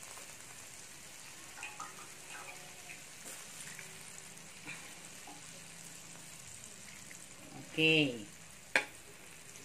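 Asparagus and garlic simmering in chicken broth in a wok: a low, steady sizzling hiss, with a metal ladle stirring and one sharp knock of the ladle against the pan near the end.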